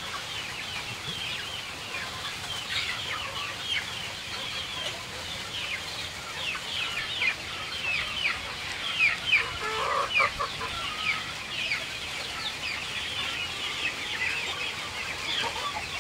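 A flock of young chickens peeping continuously as they feed, with many short, high cheeps falling in pitch and overlapping one another. A few lower calls stand out about ten seconds in.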